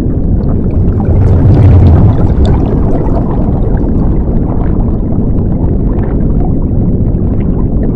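Underwater bubbling sound effect: a loud, steady low churning rumble with many small bubble pops and crackles over it.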